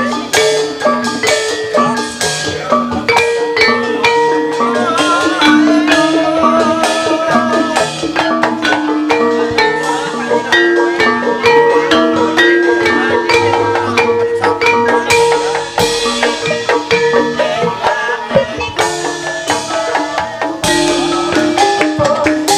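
Javanese gamelan music accompanying ebeg (hobby-horse dance). Struck metal keys and kettle gong-chimes play a dense, steady stream of notes over held melodic tones, with deeper low strokes now and then.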